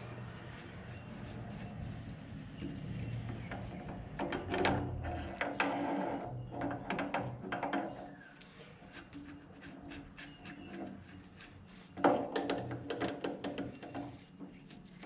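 Irregular clicks and knocks of hand tools and metal parts being handled while a nut is worked loose, over a faint steady low hum, with louder clusters in the middle and near the end.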